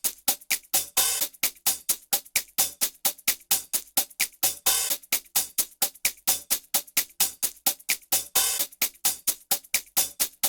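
Drum rhythm beat played alone: steady, quick drum strikes at about four a second, with a longer cymbal-like wash about every three and a half seconds.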